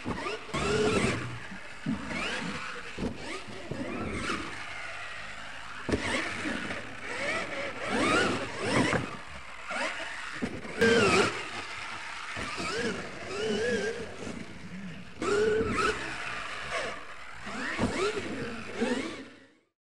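Radio-controlled monster truck's motor whining, the pitch rising and falling again and again as it speeds up and slows, with a loud knock about eleven seconds in as it lands a jump. The sound cuts off suddenly near the end.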